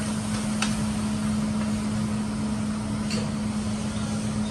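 Steady mechanical hum with an even hiss over a hibachi griddle, broken twice by a light click of the chef's metal spatula or fork against the steel plate, once about half a second in and once about three seconds in.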